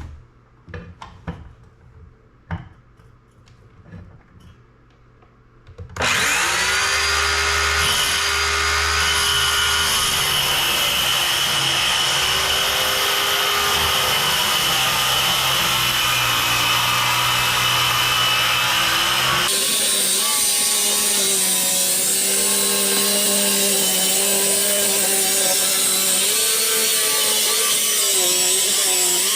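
A few light clicks and knocks, then about six seconds in an electric saw starts and runs without a break, cutting the sink opening in a countertop. Its motor tone wavers up and down under load and shifts about two-thirds of the way through.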